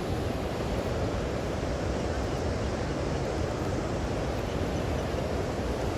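Steady rushing of sea wind buffeting the microphone, with ocean surf behind it.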